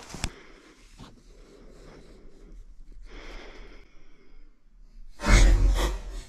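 Faint rustling, then about five seconds in a loud, brief rush of air hitting the microphone, heavy in rumble, with the sound of a heavy breath.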